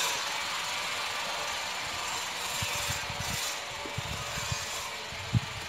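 Steady rushing outdoor background noise with a few soft low thumps in the second half, the sharpest one just before the end.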